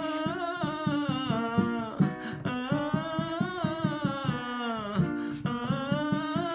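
A male voice sings a scale exercise on an open vowel, in three phrases that each rise and fall in pitch, carried from chest voice up into head voice across the bridge without pushing, with a slight cry in the tone. Underneath is an accompaniment of quickly repeated plucked notes.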